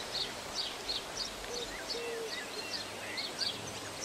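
Several birds calling: a steady scatter of short high chirps and little sliding whistles, with two low hooting calls about halfway through.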